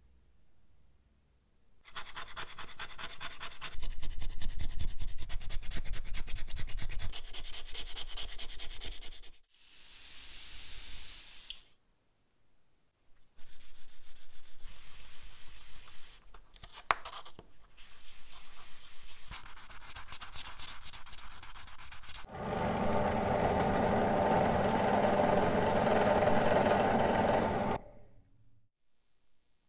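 Sanding and rubbing on a part, in several stretches with short pauses between. There is a brief high hiss about ten seconds in, and a steadier, louder stretch with a faint hum near the end.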